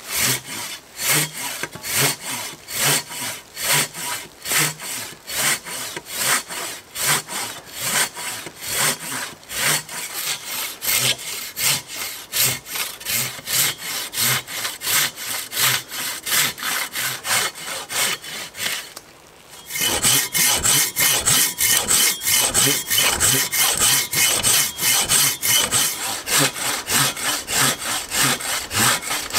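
Silky Katana Boy folding saw cutting through a living maple trunk, with steady back-and-forth strokes at about two a second. There is a short break about two-thirds in, then the strokes resume louder.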